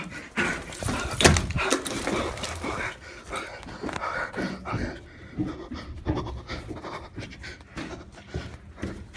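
A person panting heavily and unevenly close to the microphone, with rustling and knocks from the camera being handled, the sharpest knock about a second in.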